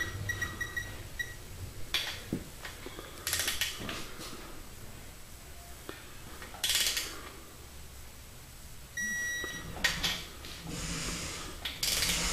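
Snap-on electronic torque wrench giving a steady buzzing beep near the start and again about nine seconds in, the signal that the set torque has been reached on a main cap bolt. Between the beeps, several short rasps of the wrench's ratchet as the bolts are pulled down.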